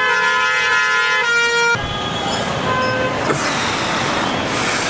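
A loud vehicle horn held for about two seconds. Its pitch steps once, then it cuts off. Busy street traffic noise follows, with short toots from other horns.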